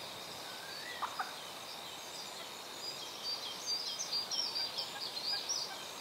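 Wild songbirds singing in marshland reeds: a busy run of quick, high chirps and trills, thickest in the second half, with one lower call sweeping up and back down about a second in.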